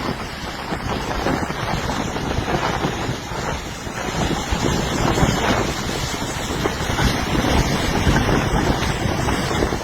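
Storm-driven sea waves surging and breaking on the shore, with wind buffeting the microphone in a steady rush of noise.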